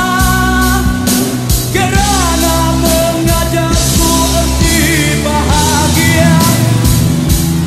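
Rock song with a singing voice over drums and bass, a steady beat throughout.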